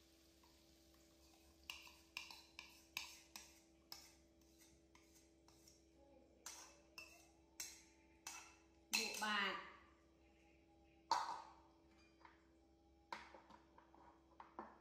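Metal spoon tapping and scraping against a bowl in runs of sharp clinks as the last pancake batter is scraped out into a frying pan. A short wavering voice sounds about nine seconds in, and a brief one near eleven seconds.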